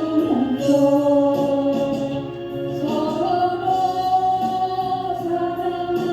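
Voices singing a Christian hymn, holding one long note and then stepping up to a higher long note about three seconds in.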